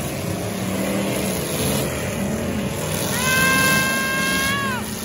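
Demolition derby cars' engines running and revving together. Near the end a horn blows steadily for about a second and a half and drops in pitch as it stops.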